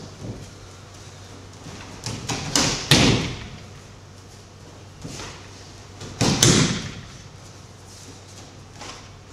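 Aikido partners taking breakfalls onto tatami mats: two loud bursts of slapping thuds, about two to three seconds in and again about six seconds in.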